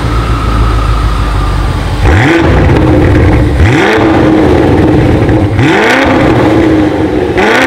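BMW X6 M's 4.4-litre twin-turbo V8 breathing through an Fi Exhaust cat-back system, idling and then free-revved in about four quick blips, roughly two seconds apart, each a sharp rise in pitch.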